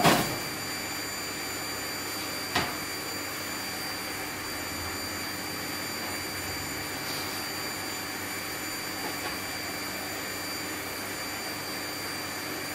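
A stainless steel tray clanks down on the smoker's metal shelf, then a single sharp metal tap about two and a half seconds later, over a steady background hiss.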